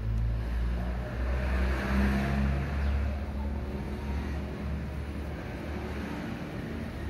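A motor vehicle's engine running, rising to its loudest about two seconds in, then settling into a steady low hum.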